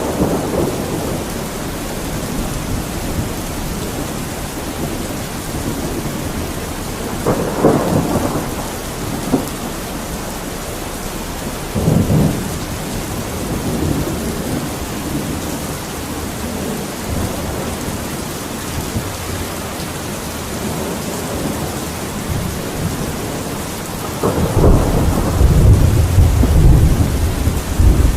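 Steady rain falling, with rumbles of thunder: short ones about seven and twelve seconds in, and a longer, louder roll near the end.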